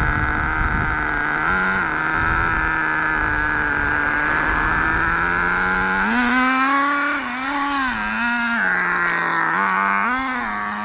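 Homemade RC rail dragster's small two-stroke engine idling steadily, then revved in several short blips in the second half.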